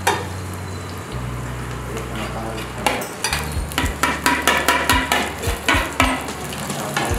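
Cooked basmati rice sizzling as it is tipped into hot oil in a pot, and from about three seconds in a spoon scraping and tapping repeatedly on the plate and pot rim as it pushes the rice off.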